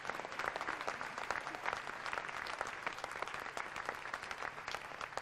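Audience applauding, with many hands clapping at once in a dense, steady patter.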